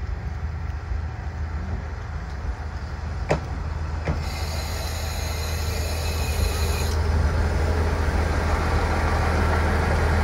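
KiHa 40-series diesel railcar pulling slowly into a station: a steady low engine and running rumble that grows louder as the cars roll past close by, two clicks a little over three and four seconds in as wheels cross a rail joint, then a high-pitched squeal from the running gear from about four seconds in as it slows to a stop.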